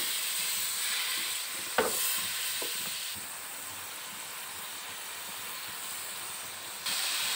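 Onion, garlic and spice masala sizzling in hot oil in a metal pot, stirred at first with a wooden spatula, with a sharp knock about two seconds in. It then sizzles on alone, a little quieter.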